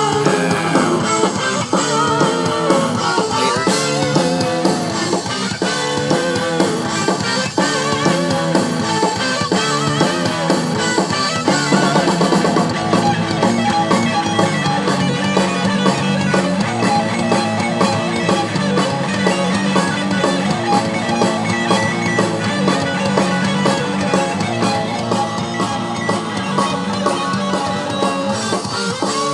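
Outro music: rock music with guitar and drum kit, a steady beat throughout.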